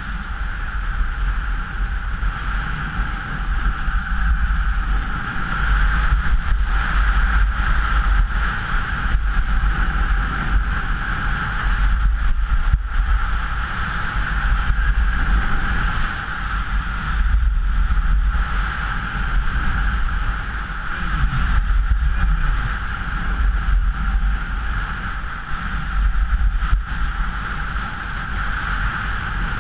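Steady wind rush and buffeting on the microphone of a camera carried by a downhill skier, over the hiss of skis sliding on snow.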